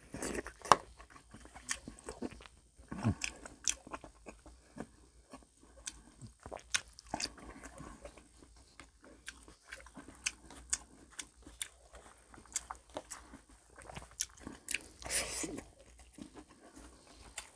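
Close-up eating of crisp fried food: irregular crunchy bites and chewing, with sharp crackles scattered throughout and a louder run of crunching about fifteen seconds in.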